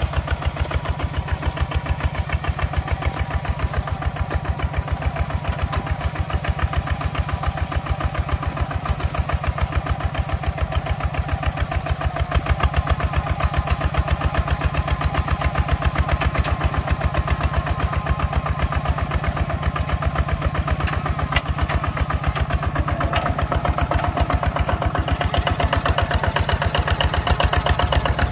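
Walking tractor's engine running steadily at low speed, with an even pulse of about six beats a second. A higher steady whine joins in near the end.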